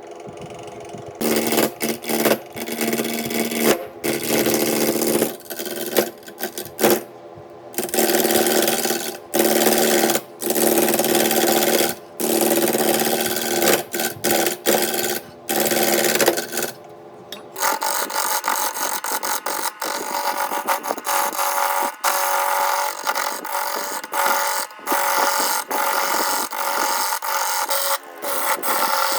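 Woodworking tools cutting and rasping wood, stopping and starting abruptly many times; the sound changes character about two-thirds of the way through.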